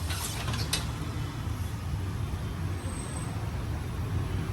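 A motor running with a steady low hum, with two short hisses near the start.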